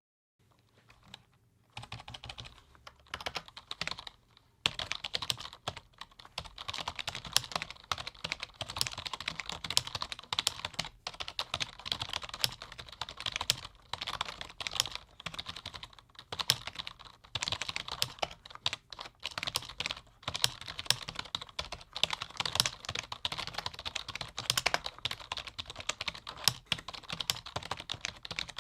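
Fast typing on a low-noise computer keyboard: a rapid, irregular stream of soft key clicks. It starts about two seconds in, pauses briefly, then runs on without a break.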